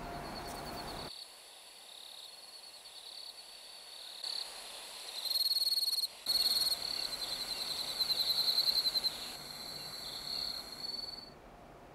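Crickets trilling in a night-time insect chorus: a high, rapidly pulsing trill that swells and fades. The sound changes abruptly about a second in and again about six seconds in.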